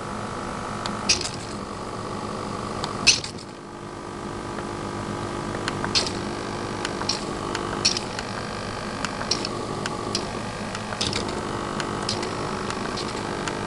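Hobby servo motors of a robotic paintbrush arm whining and humming steadily as they hold and reposition the arm, the tone shifting a few times, with sharp clicks every second or two.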